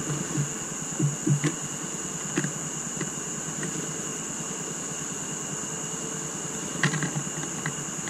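Blue tits landing and tapping on a wooden seed feeder: a few light knocks about a second in, a couple more shortly after, and a small cluster near the end, over a steady hiss with a thin high whine.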